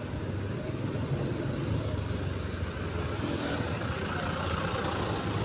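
Steady street traffic noise of motorbikes moving slowly through a junction, with the small single-cylinder engine of a Honda Beat scooter running at low speed close by, heard from the moving scooter.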